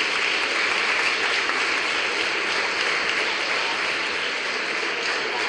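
Audience in a hall applauding steadily, a dense, even clapping that eases off slightly near the end.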